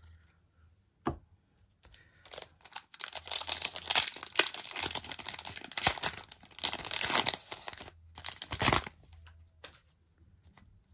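Foil wrapper of a Pokémon trading card booster pack being torn open and crinkled in the hands. There is a single tap about a second in, then a dense crackling rustle from about two seconds in that stops near nine seconds, followed by a few light rustles.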